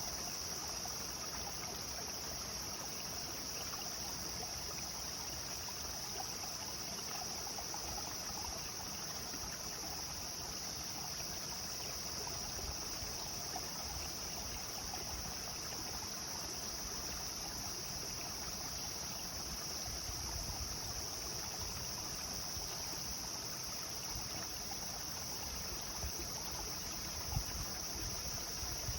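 Clear river water flowing steadily over stones, a constant rushing and burbling, with a steady high-pitched insect drone over it. A few low rumbles come in near the end.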